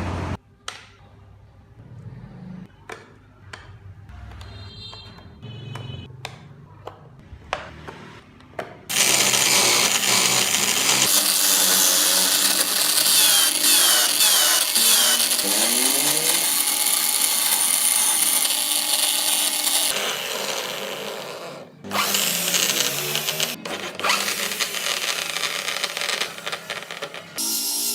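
A handheld power tool, such as a drill or rotary carving tool, grinding into wood. It is loud, with its motor pitch shifting as it bites. It starts about nine seconds in after a stretch of scattered taps and clicks, stops briefly near twenty-two seconds, then runs again.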